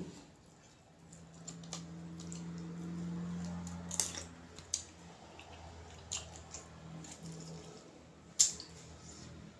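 Eating sounds: metal tongs and a spoon clicking against a bowl several times, the sharpest click near the end, with soft chewing. A low steady hum runs through the first half and then fades.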